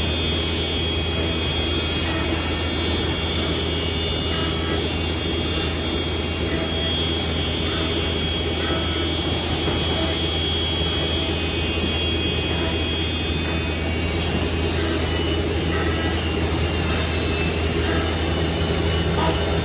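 Holztek PRO-R4F four-head CNC nesting router running: a steady high whine from the spindles over a low, even machine hum. The whine fades about three-quarters of the way through.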